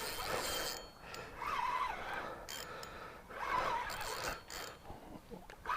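A person breathing hard: three heavy breaths, each about a second long and a second or so apart.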